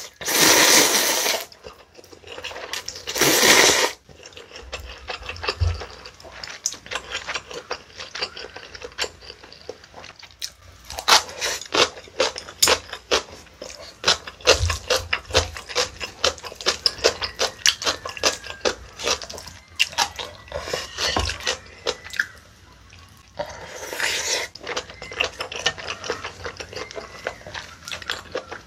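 A person slurping cold buckwheat noodles twice in quick succession, each a loud wet hiss, then chewing close to the microphone with many small wet clicks and crackles.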